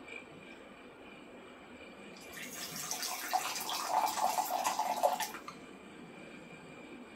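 Water running or pouring for about three seconds, starting and stopping abruptly, over a quiet background.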